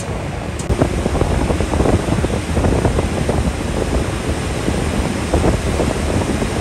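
Wind buffeting the microphone on a moving riverboat, with the rush of water beneath it: a loud, uneven rushing noise.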